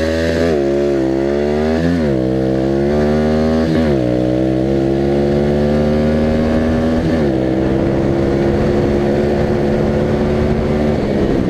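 125 cc pit bike engine at full throttle from a first-gear launch. Its pitch climbs, then drops back at each upshift, several times in the first seven seconds, then holds high in the top gear before easing off near the end.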